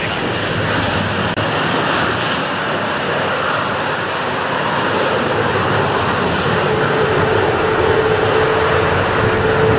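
Boeing 777's twin jet engines running at high power as the airliner begins its takeoff roll on a wet runway: a steady jet roar, joined by a steady whine about two-thirds of the way through as it grows slightly louder.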